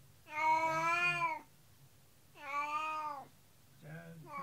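Domestic cat meowing plaintively: three drawn-out meows, each about a second long, the second sliding down in pitch at its end, the last starting near the end. The owners hear these as cries of distress, the cat fretting over her companion cat taken away for surgery.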